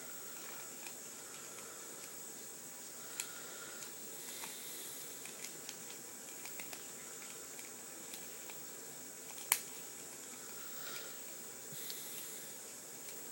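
Small plastic clicks and taps of a Transformers action figure's parts being handled and snapped into place, over a steady hiss. One sharper click comes about two-thirds of the way through.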